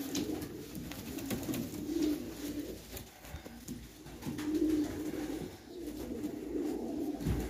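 Two-crested pigeons cooing: low, rolling coos that swell several times, with a few light clicks in between.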